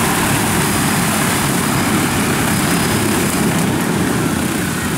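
Large multirotor agricultural spray drone whirring loudly as it hovers low and sets down to land, its battery spent. The rotor noise eases a little near the end.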